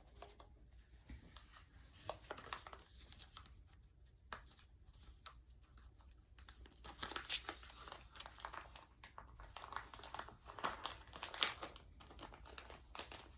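Packaging and small plastic parts being handled during an unboxing: faint rustling and crinkling with scattered light clicks and taps, busier in the second half.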